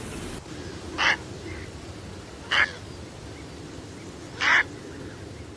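Short harsh animal calls, most likely a bird's, sound three times, about a second and a half to two seconds apart, over a faint steady background hum.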